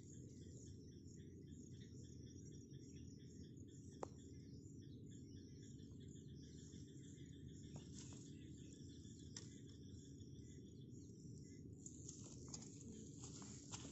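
Faint countryside ambience: a low steady hiss with high, rapidly pulsing insect trills and bird chirps, and a few sharp faint clicks, several of them close together near the end.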